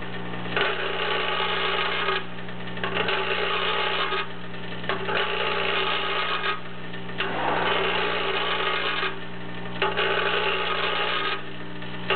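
Vibratory parts feeder running: a steady electric hum under a metallic rattle of parts vibrating along the steel track. The rattle breaks off for well under a second every one and a half to two seconds, five stretches in all.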